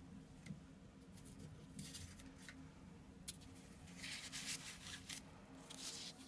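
Faint rustling and crinkling of the paper and plastic pieces of a tempered-glass screen protector kit as they are handled, in three short spells, with one sharp tick about three seconds in.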